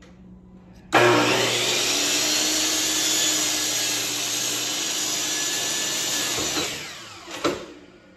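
Electric miter saw starting suddenly about a second in and running at full speed as its blade cuts through a wooden post. It is switched off and winds down with falling pitch, ending in one sharp knock.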